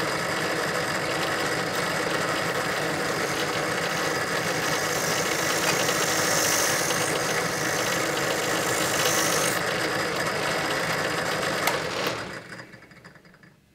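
Small Grizzly benchtop drill press running at its fastest belt speed with a flap wheel in the chuck, sanding a metal rifle part held against it. The motor winds down and stops about twelve seconds in.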